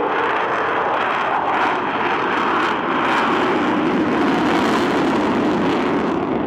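Avro Vulcan's four Olympus turbojet engines in flight, a loud, steady jet roar that swells a little about halfway through.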